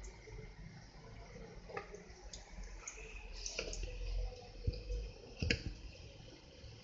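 Small batter dumplings frying in hot oil in a karahi over a low gas flame: a faint sizzle with scattered sharp pops and clicks, a few louder ones after the middle.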